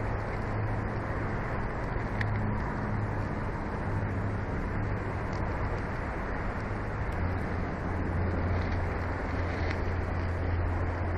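Steady outdoor background noise from the nest camera's microphone: an even rush with a low hum beneath it.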